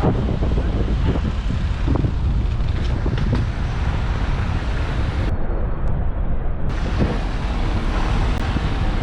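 Wind buffeting the microphone of a camera carried on a moving bicycle: a steady, loud low rumble, with road traffic mixed in.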